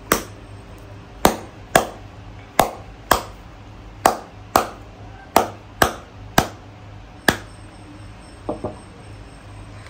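Sharp knocks as a hard-shelled round fruit is struck to crack its shell open. There are about eleven hits, mostly in pairs about half a second apart, then two fainter taps near the end.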